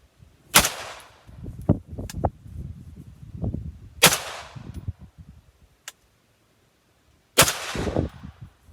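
Three single shots from an AR-15 rifle firing 62-grain green-tip 5.56 ammunition, about three and a half seconds apart, each followed by a short echo. They are sighting-in shots after a red-dot adjustment.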